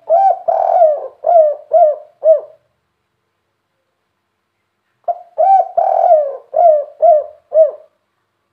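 Spotted dove cooing: two song phrases about two and a half seconds apart, each an opening coo and a longer rolling coo followed by three short closing coos, the three-note ending that fanciers call 'kuk 3'.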